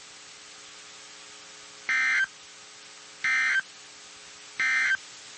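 Emergency Alert System end-of-message data signal from a NOAA Weather Radio broadcast: three short bursts of digital data tones, a little over a second apart, over a faint steady hum. It marks the close of the snow squall warning.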